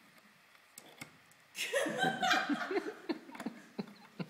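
Laughter, starting about a second and a half in and lasting about two seconds. A few light clicks from a hand-held wheel can opener being worked on a tin can come before and after it.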